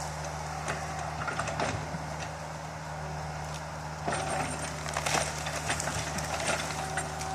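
Excavator's diesel engine running steadily at a constant speed, with a few scattered knocks and clanks from the machine at work.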